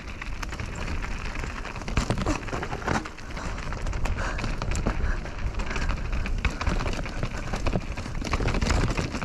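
Mountain bike descending a rocky dirt trail, heard from a GoPro on the rider: a steady rumble of wind on the microphone, with tyres crunching over rocks and scattered knocks and rattles as the bike hits bumps.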